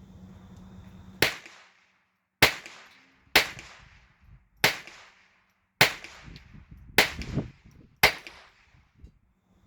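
Seven gunshots fired about a second apart, each sharp crack followed by a brief echoing tail, from a gun being sighted in to correct its red-dot sight, which is putting shots left of the aim point.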